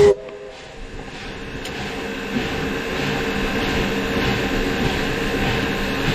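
Virginia & Truckee No. 25, a 4-4-0 steam locomotive, heard from its cab. A steam whistle blast cuts off right at the start, then the engine's steady mechanical noise under steam builds up over the next two seconds and holds.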